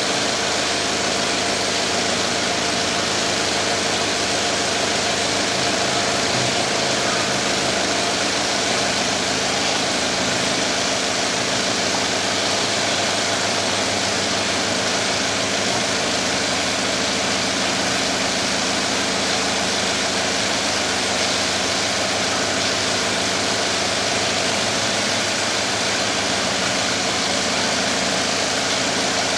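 WY-3A automatic mattress border tape sewing machine running steadily: its chain-stitch sewing head and tape feed motor make a continuous, even mechanical noise with no pauses or changes in speed.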